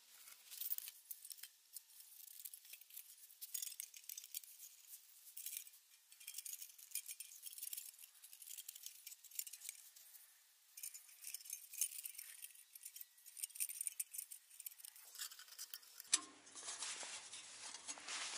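Faint, rapid metallic clicking and clinking of thin titanium panels being slotted and hooked together as a flat-pack firebox stove is assembled.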